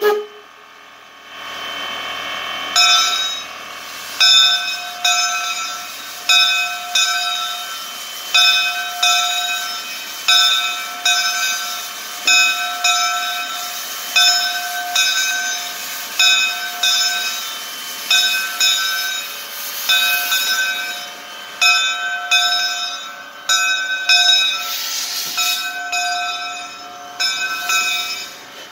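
Steam locomotive bell ringing about once a second, starting a few seconds in, over a steady hiss of escaping steam that briefly swells near the end.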